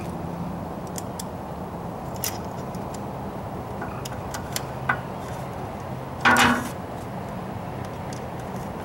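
Small metallic clicks and taps of screws and a stainless transducer bracket being fitted against a boat's transom, with one louder, brief rasping burst a little past six seconds in, over a steady low hum.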